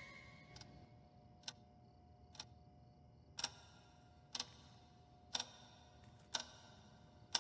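Cartoon sound effect of a clock ticking slowly, about once a second, the ticks faint at first and louder from about three seconds in.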